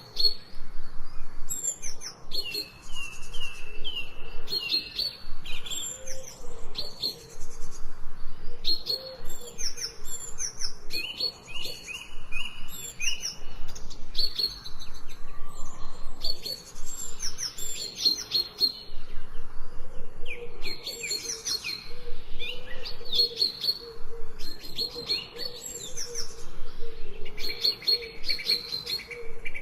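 Songbirds chirping and calling continuously, with quick runs of high repeated notes and trills overlapping one another.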